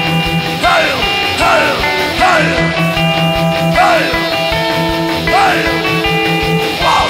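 Heavy metal song: distorted electric guitars over a fast beat, with a sweeping figure that rises and falls in pitch several times.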